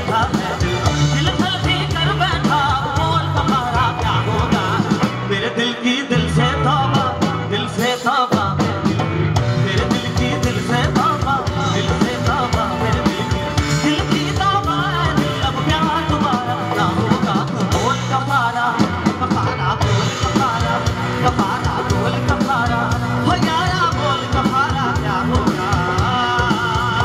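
A male singer performing live with a band through a PA: amplified vocals over keyboard and drums, continuous throughout.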